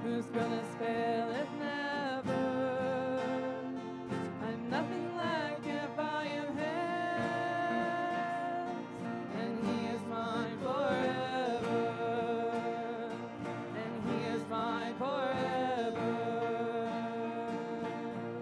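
A worship song, sung with instrumental accompaniment.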